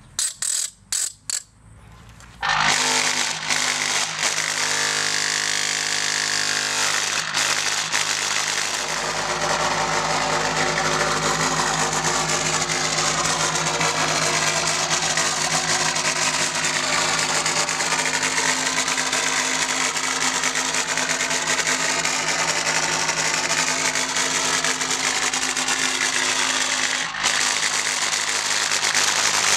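Solar-heated thermoacoustic engine running, its air column oscillating and shaking the membrane: a loud steady buzz with many overtones. It sets in about two and a half seconds in, after a few brief sounds.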